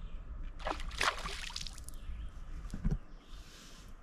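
A hooked fish splashing and thrashing at the water's surface about a second in, while it is being played on a spinning rod. A short dull knock follows near the end.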